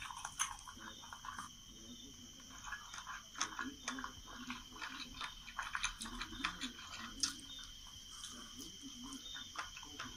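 Mukbang eating sounds, wet chewing and crunchy clicks, playing through a laptop speaker. A steady high insect trill runs underneath.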